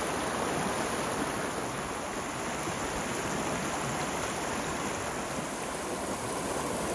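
Fast-flowing creek rushing over rocks: a steady wash of white water.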